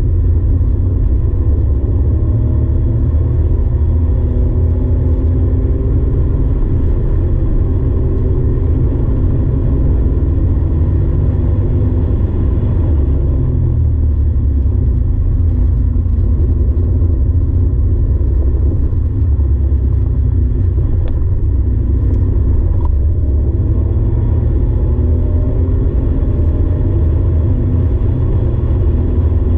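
Porsche 964's air-cooled flat-six engine pulling hard on track, heard from inside the cabin as a loud, steady drone over heavy low rumble. Its pitch climbs and drops several times as the car accelerates and shifts.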